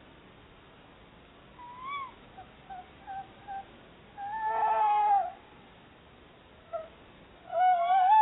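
A pair of tawny owls calling to each other: a short rising-and-falling call, a few short notes, then two longer wavering calls, the louder one about four seconds in and the other near the end.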